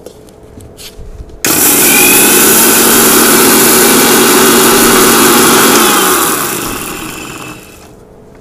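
Electric mixer grinder switched on about a second and a half in, running at full speed with a steady motor hum as it grinds dry yellow mustard seeds in its steel jar, then switched off, its hum falling in pitch as it winds down.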